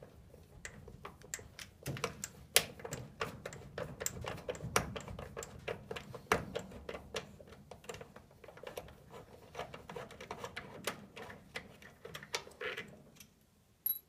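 Rapid, irregular clicks and taps of hands working on the parts and wiring around a furnace's draft inducer motor during disassembly. The clicking stops about a second before the end, then one last sharp click.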